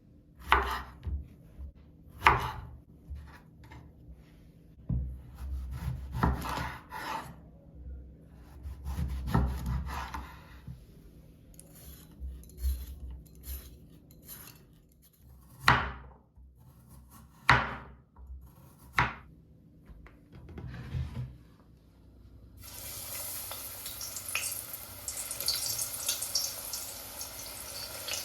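Kitchen handling sounds: dishes and utensils knocked and scraped, with several sharp clacks. Near the end a tap starts running.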